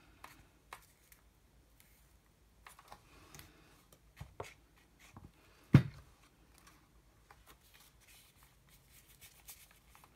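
Soft paper rustling and small taps as torn newspaper strips are handled and pressed down on a table, with one sharp thump a little past halfway.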